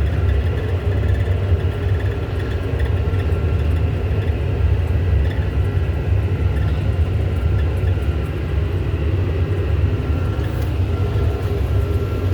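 John Deere tractor's diesel engine running steadily, a constant low drone with a faint steady whine above it.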